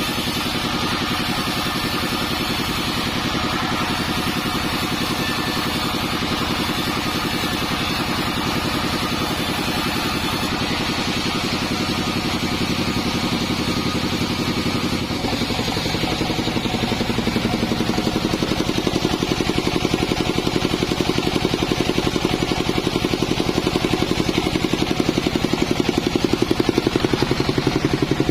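Modified Bandsaw48 band sawmill running steadily while sawing teak. About halfway through its pitch shifts and it grows louder.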